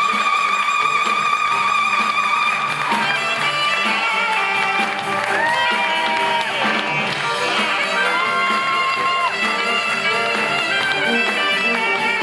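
Saxophone playing a live solo over band accompaniment. A long held note with vibrato lasts about three seconds, then gives way to quicker runs and held notes that bend in pitch.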